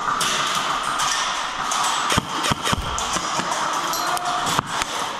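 Background music laid over the footage, steady in level, with a few sharp knocks about two seconds in, just before three seconds and after four and a half seconds.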